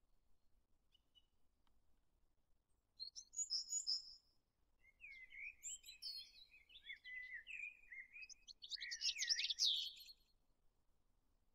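Songbirds singing in three runs of quick, high chirping and warbling notes, the loudest run about nine seconds in.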